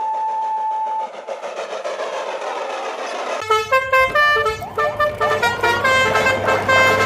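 Steam locomotive whistle blowing one steady note for about a second, then the noise of the train running. About three and a half seconds in, upbeat music with a steady bass line starts.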